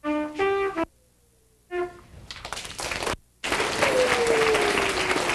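A trumpet plays a few short notes separated by silences, the last ending about two seconds in. Audience applause then builds and goes on loudly, with one long falling call heard over it.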